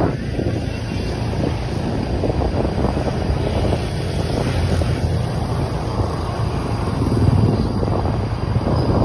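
Wind buffeting the microphone over a steady low vehicle rumble, as from riding along a road.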